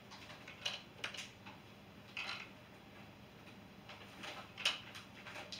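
Handling noise of a hard plastic snorkel kit being turned over in the hands: scattered light clicks and rustles, the sharpest one a little before the end.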